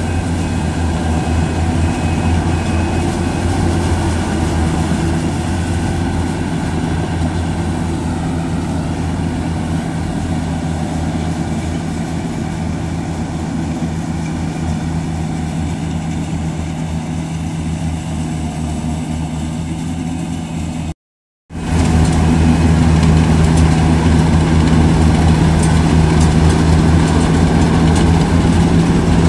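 Diesel engine of a Yanmar AW70V rice combine harvester running steadily as the machine tracks through deep paddy mud. The sound cuts out for a moment about two-thirds of the way through, then comes back louder and closer.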